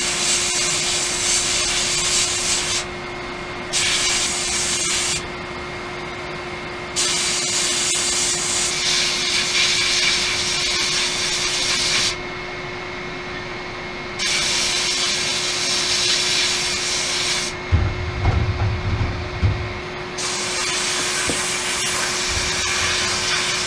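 Sandblast cabinet's air-fed blast gun hissing in bursts of a few seconds, switched on and off about five times, as abrasive strips old paint and rust from metal pulleys. A steady hum runs underneath, and a low rumble comes in one of the pauses near the end.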